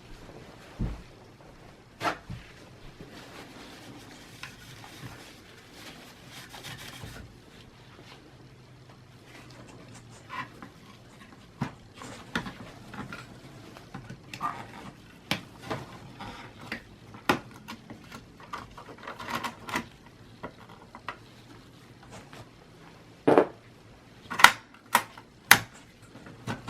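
Soft rubbing of a paper towel wiping thermal compound off a desktop PC's CPU, then light clicks and taps of hands handling metal and plastic computer parts, with a few louder knocks near the end.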